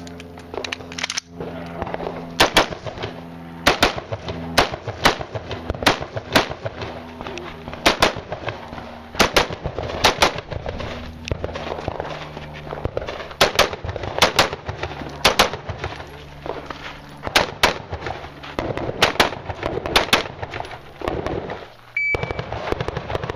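Rifle shots fired one after another through a match stage, about one to two a second at an uneven pace and often in quick pairs, over a steady low hum.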